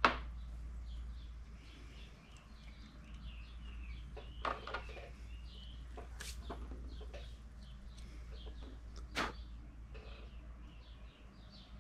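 Birds chirping steadily in the background, with a few sharp clicks of small metal parts and tools handled on a workbench. The loudest click comes right at the start, with three more spread through the rest.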